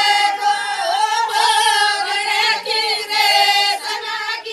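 A group of women singing together without instruments, in held, repeated phrases broken by short pauses.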